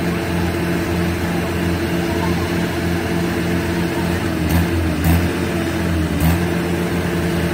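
Diesel engines of tractors hitched in a chain, a Swaraj 744 FE and Mahindra 575 DI tractors, running hard under heavy load to drag a loaded sugarcane trolley stuck in mud. The engine note is steady, with a brief wavering in pitch about five seconds in.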